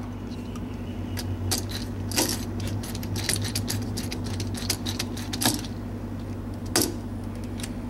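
Screwdriver turning a terminal screw on a wall toggle switch: a run of small metallic clicks and clinks of the tool on the screw and the switch's metal strap, a few of them louder.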